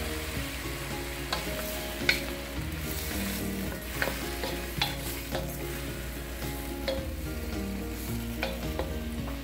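Sliced mushrooms sizzling in butter and oil in a non-stick wok, with a quarter cup of water just added. A wooden spatula stirs them, scraping and knocking against the pan several times.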